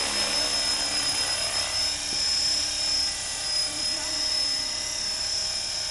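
Align T-REX 450 electric RC helicopter hovering, its motor and rotor giving a steady high-pitched whine.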